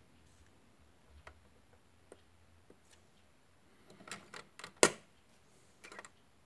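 Handling of the motherboard's CPU socket as it is closed over the freshly seated processor: a few light clicks, then a cluster of metal-and-plastic clicks ending in one sharp snap a little before five seconds in, and a few more clicks shortly after.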